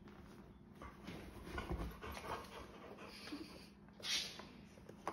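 Rottweiler panting and breathing close by, with a short, loud breathy burst about four seconds in.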